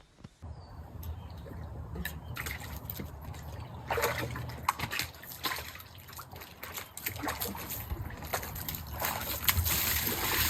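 Water sloshing and splashing, with many small clicks and knocks over a low rumble, getting louder towards the end.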